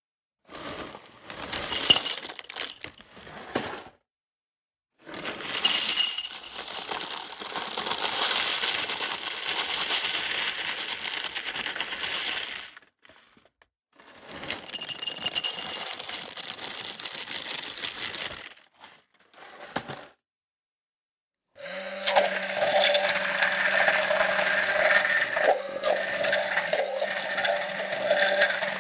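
A run of separate kitchen cooking sounds broken by short silences: clinking and cracking with a ringing, glass-like edge, then from about 22 seconds in a steady appliance hum with clatter over it.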